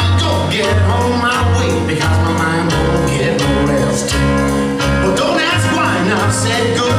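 A song with a singer over a steady bass beat, played as dance music.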